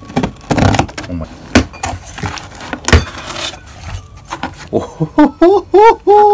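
Packing tape pulled off a cardboard box and the flaps opened, with cardboard rustling and several sharp rips and snaps. About five seconds in, a man's drawn-out, wavering "ohhh" comes in, bending up and down in pitch.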